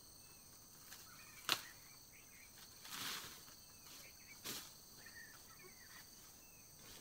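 Machete strikes cutting through undergrowth: a sharp crack about a second and a half in, then two swishing chops about a second and a half apart. Behind them runs a steady high insect hum with faint chirps.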